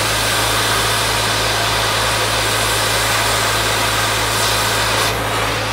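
Oxy-fuel cutting torch with a rivet gouging tip hissing steadily as its cutting oxygen washes the heated head off a rivet, over a steady low hum. The high hiss drops off about five seconds in.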